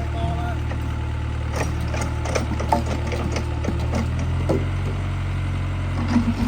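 Excavator's diesel engine running steadily, its note shifting and deepening about four seconds in, with scattered knocks and clatter.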